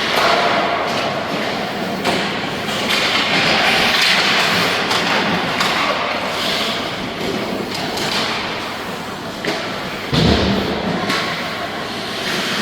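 Youth ice hockey play in a rink: a steady scraping rush of skates with scattered sharp clacks of sticks and puck, and a heavy thud against the boards about ten seconds in.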